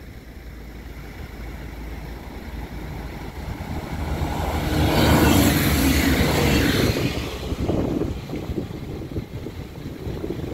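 Regional passenger train passing close by on the track, a rumbling rush of wheels and air. It builds over the first few seconds, is loudest for about two seconds around the middle, then fades away.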